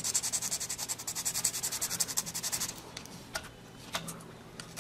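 Sandpaper rubbed back and forth over a small plastic model part, in quick even strokes about six a second that stop near three seconds in, followed by a few faint clicks.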